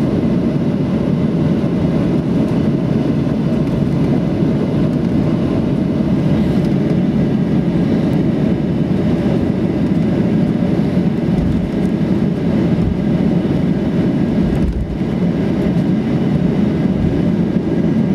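Steady cabin rumble of a Boeing 737-800 rolling on the ground, its twin CFM56 turbofans running at a constant low setting.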